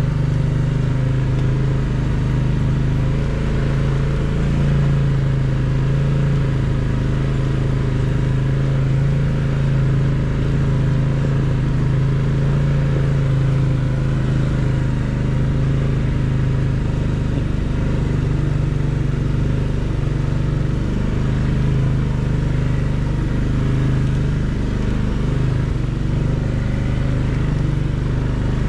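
Can-Am Outlander 700 ATV's single-cylinder engine running at a steady, nearly constant pitch while the machine is ridden along at an even pace.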